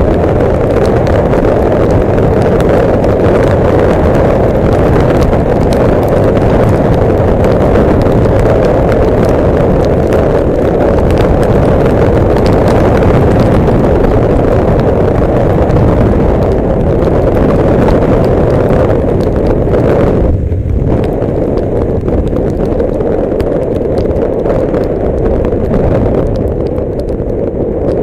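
Loud, steady rush of wind and rain over a motorcycle-mounted camera riding fast through a downpour, with raindrops ticking on the camera housing and spray hissing off the wet road. It eases slightly near the end.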